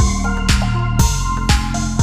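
Background music with a steady beat, about two beats a second, over sustained held notes.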